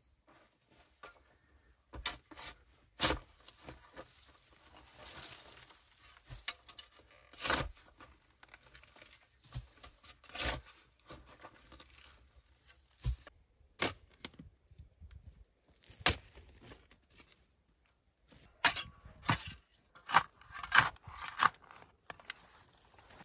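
Hand work with wood: irregular sharp knocks and snaps, with a stretch of tearing noise about five seconds in and a quicker run of louder knocks near the end.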